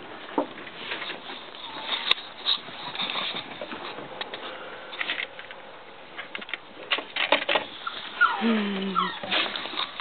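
Cavalier King Charles Spaniel puppies moving about on a wooden deck, with scattered light paw clicks and scuffs; near the end a puppy gives a short whine that drops in pitch.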